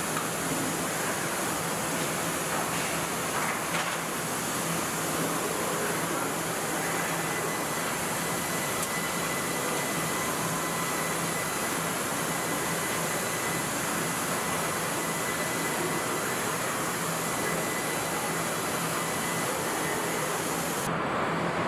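Steady industrial din of a car body shop: a constant hiss of machinery and ventilation over a low hum, with a faint high tone for a while in the middle.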